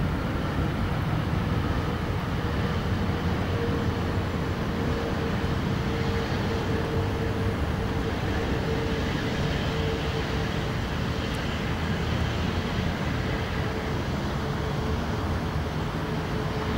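Airbus A340-600 on its landing roll-out, its four Rolls-Royce Trent 500 turbofans making a steady rumble with a held engine whine that falls slightly in pitch as the jet slows.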